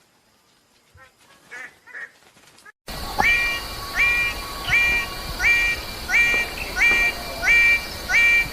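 Bird-of-paradise calling: faint scattered calls at first, then about three seconds in a sudden switch to a loud series of eight matching calls, one roughly every 0.7 s.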